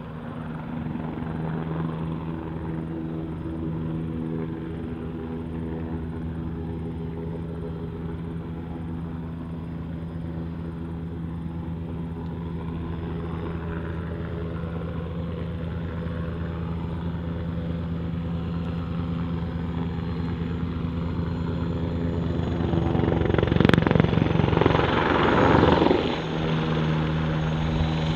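Eurocopter Tiger ARH attack helicopter in flight, with its rotors and twin turboshaft engines giving a steady beating hum of several pitches that grows louder in the first couple of seconds. About 23 seconds in it swells into a louder rushing burst for about three seconds, then settles back to the steady hum.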